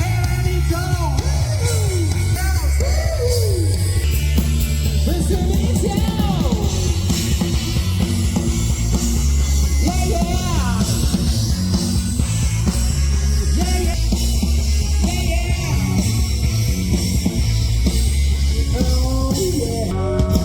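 Loud rock music with a singer, guitar and heavy bass, played without a break.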